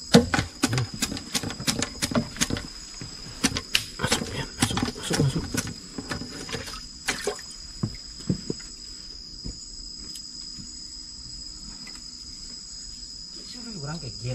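Night insects, crickets, keep up a steady high-pitched chorus. Over it, in the first seven seconds or so, comes a busy run of splashes and sharp knocks, then it settles to the insects alone.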